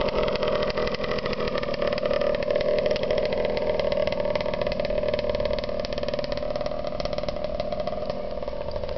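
Dirt bike engine running steadily with a fast, even pulse, getting slowly quieter toward the end.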